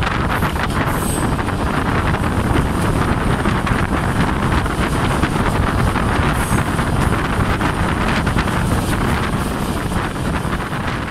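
Wind rushing over the microphone from a window of a moving passenger train, over the steady rumble of the carriages rolling on the rails. It eases slightly near the end.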